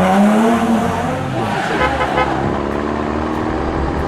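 Cartoon vehicle engine sound effect running, its pitch wavering up and down and then settling into a steadier, lower note.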